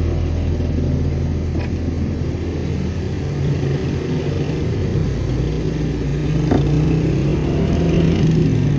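Road traffic noise in slow stop-and-go traffic: a steady low rumble of idling and creeping car engines.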